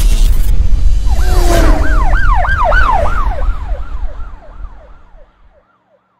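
Logo-animation sound effect: a deep rumble under a warbling electronic tone that rises and falls about three times a second, echoing, then fading away over the last couple of seconds.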